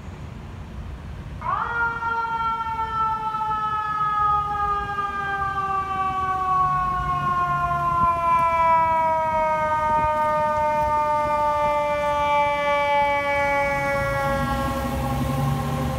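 A fire engine's mechanical siren spins up sharply about a second and a half in, then winds slowly down in pitch in one long falling wail. The truck's engine rumble grows near the end as it turns close by.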